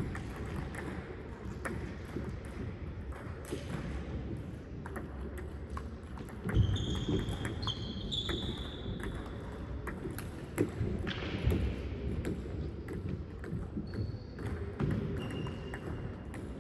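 Table tennis balls clicking and tapping off paddles and tables at an irregular pace, with a few short high squeaks in the middle and near the end.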